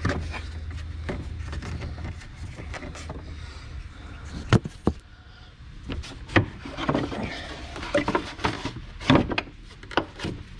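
Irregular knocks, clicks and rattles as a Hemi V8's plastic engine cover is worked off its rear mounting pins and handled. A low hum fades out about two seconds in.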